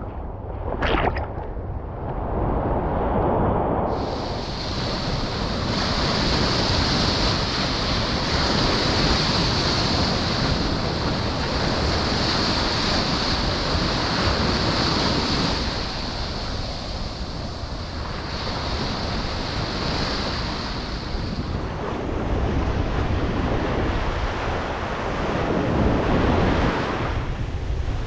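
Small sea waves breaking and washing up the shore, with wind rumbling on the microphone throughout. Right at the start, water splashes close to the microphone.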